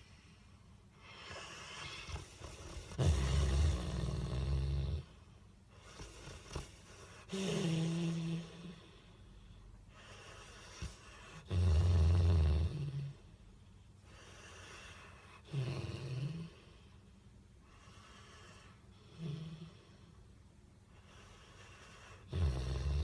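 A sleeping Bullmastiff snoring: about six deep, low-pitched snores roughly every four seconds, with softer breathing between them. The loudest come a few seconds in and about halfway through.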